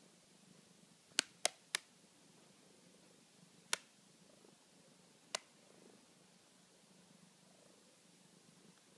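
A cat purring steadily and faintly, with sharp taps of its paw on a tablet screen: three quick taps just over a second in, then single taps near four and five and a half seconds.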